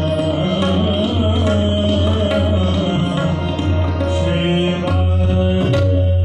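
Live Indian classical music: tabla and sitar played over a steady low drone, with a few sharp drum strokes near the end.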